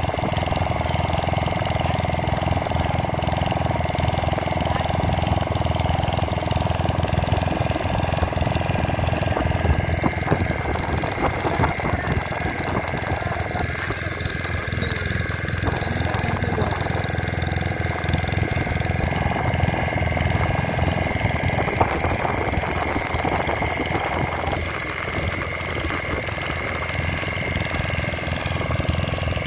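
Fishing boat's inboard engine running steadily, a continuous rapid chugging with a steady hum over it.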